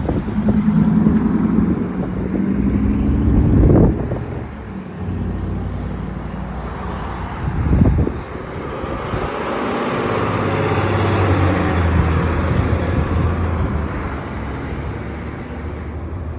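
Motor vehicle engine running close by, its hum swelling and fading, loudest about four seconds in and again about eight seconds in, with wind noise on the microphone.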